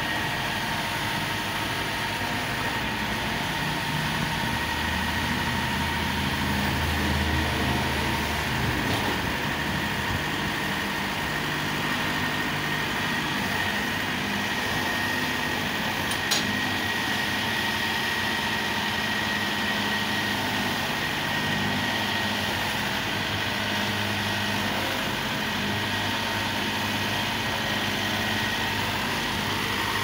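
Tracked combine harvester's diesel engine running steadily as the machine creeps down loading ramps, with a steady whine over the drone. One sharp clack comes about sixteen seconds in.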